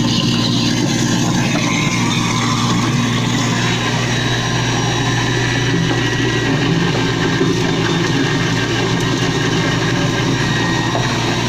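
Kitchen sink food waste crusher (disposer) running with a steady motor hum, grinding scraps as tap water flushes them through. Ground-up slurry pours from its outlet pipe into the drain.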